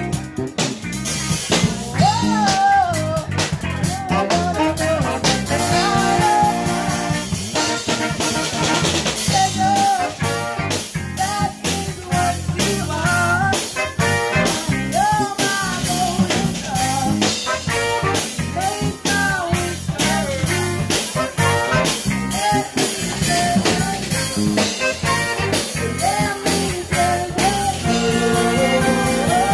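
Live band music with a steady drum beat: a woman singing over a saxophone section.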